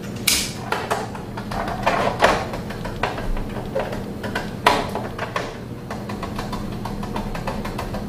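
Hands handling a plastic wall-mounted timer enclosure: scattered clicks and knocks, the sharpest about a quarter second in and near the five-second mark, over a steady low hum.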